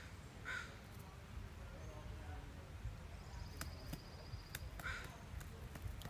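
Pileated woodpecker pecking at a rotting stump: a few sharp, scattered taps in the second half. A bird gives two short harsh calls, about half a second in and again near the end.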